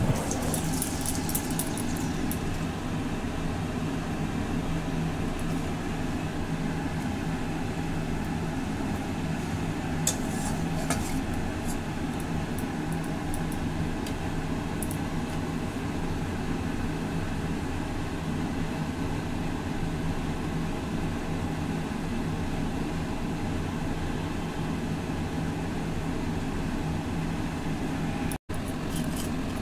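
A steady low machine hum, with a few faint crackles from hot oil heating in a wok, most of them in the first two seconds and a few more about ten seconds in.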